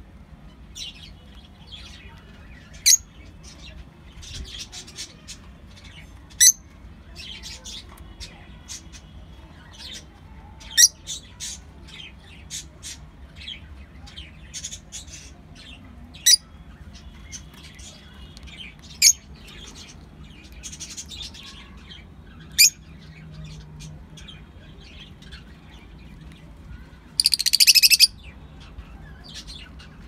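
Caged lovebirds, a rosy-faced lovebird among them, giving short, shrill chirps every second or two. Near the end comes one harsh screech lasting about a second.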